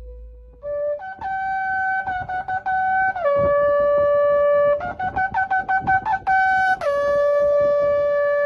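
Shofar blowing: loud held blasts that drop in pitch at their ends, broken up by short stuttering notes and a quick run of rapid staccato blasts in the middle.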